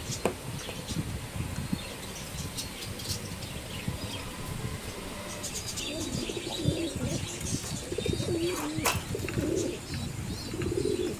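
Domestic pigeons cooing from about six seconds in, several wavering low coos, over rustling and light clicks as the birds are handled in the wire cage.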